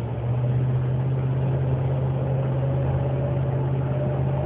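2009 Dodge RAM 1500 pickup under throttle: a steady low drone with a fainter, slightly rising whine above it. This is the intermittent drivetrain whine that comes on around 35–40 mph in the shift from third to fourth gear and stops when the accelerator is released.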